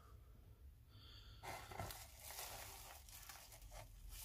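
Bubble wrap crinkling faintly as hands lift and unwrap it, starting about a second and a half in.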